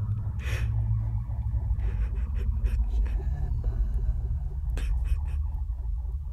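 A woman sobbing, with breathy, shaky breaths, over a steady low drone; a sharp click near the end.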